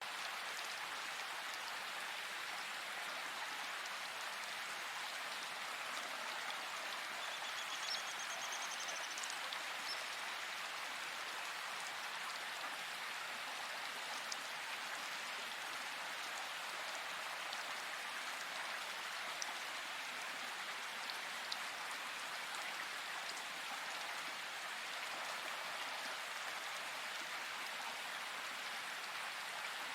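A steady rushing hiss with a few faint, high bird chirps over it, including a short trill about a quarter of the way in.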